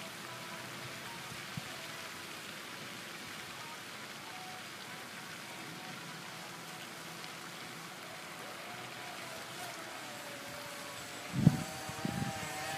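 Steady splashing of a pond fountain's spray falling on the water. From about two-thirds of the way in, the thin wavering whine of an electric RC boat's motor, rising in pitch near the end. About a second and a half before the end there is a sudden loud low thump followed by rumbling.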